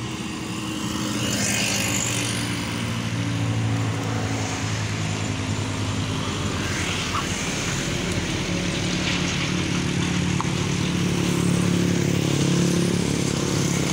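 Old Mitsubishi Fuso diesel truck's engine labouring under load as it crawls up a steep grade, a steady low drone that is struggling for power. Motorcycles and cars pass close by, one with a rushing whoosh about a second in.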